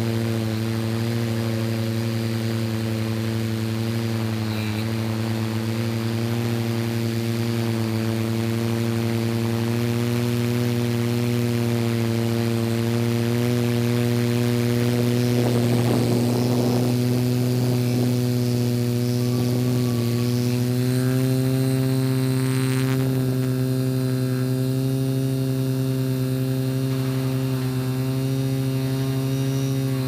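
Multirotor drone's motors and propellers humming steadily as it hovers and drifts, picked up by its own onboard camera. The pitch steps slightly higher about two-thirds of the way through.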